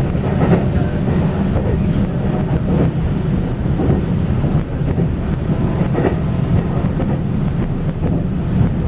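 Running noise of a moving Taiwan Railway commuter train heard from inside the carriage: a steady low rumble of wheels on rails, with a few light knocks.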